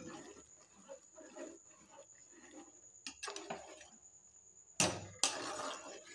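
A steel ladle stirring a large metal pot of chicken nihari as flour paste is mixed in to thicken it, with soft scrapes, a sharp clink about three seconds in and louder clanks and scraping near the end.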